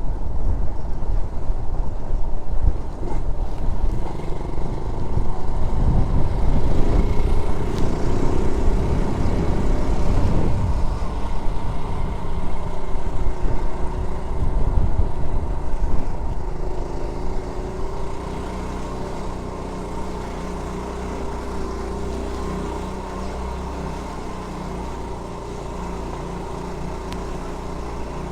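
Honda Z50J monkey bike's small 49 cc single-cylinder four-stroke engine running while riding, with heavy rumble over the microphone; about seventeen seconds in it drops to a quieter, steadier note.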